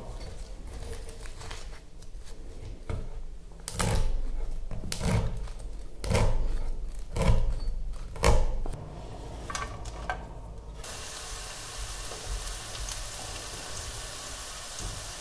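Chef's knife chopping sage leaves on a wooden cutting board: a run of knocks, heaviest from about four to eight seconds in. About two-thirds of the way through it gives way to chopped onion and sage sizzling steadily in a frying pan.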